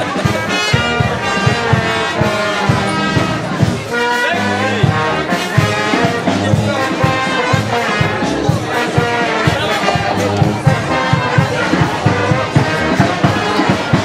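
A brass band playing a tune live, with trumpets and trombones over a steady beat in the bass.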